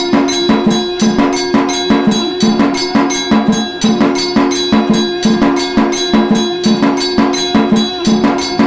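Electric aarti machine running: its motor-driven strikers beat the drum, brass bell and cymbal in an even, fast rhythm of about four strikes a second, the bell ringing on. A steady conch-like tone, the machine's shankh sound, plays along underneath.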